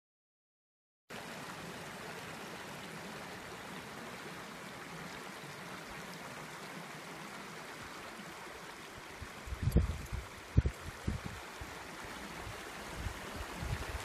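Steady rush of running water, a mountain stream, starting abruptly about a second in. About ten seconds in, a few loud low thumps hit the microphone.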